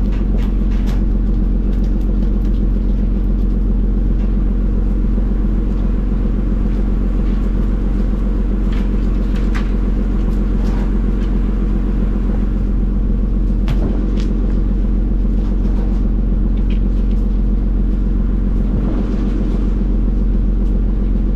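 Fishing boat's engine running with a steady low drone. A few short sharp knocks sound over it.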